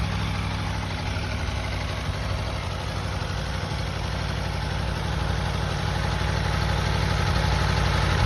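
2021 Aprilia Tuono V4 Factory's V4 engine idling through its stock exhaust just after a rev, steady and growing slightly louder near the end.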